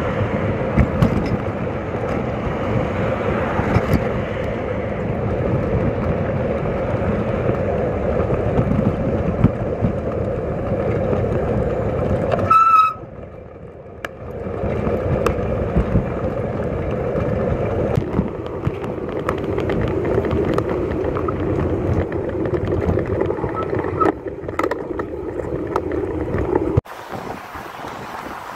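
Riding noise picked up by a camera mounted on a moving bicycle: steady wind and rattle with the sound of road traffic alongside. A short, high beep sounds about 13 s in. The noise drops abruptly twice, at cuts between stretches of the ride.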